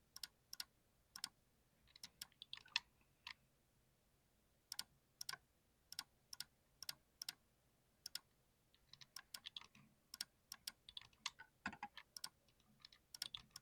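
Keys being typed on a mechanical keyboard with TTC switches: faint, irregular key clicks, some single and some in quick runs, with a couple of short pauses.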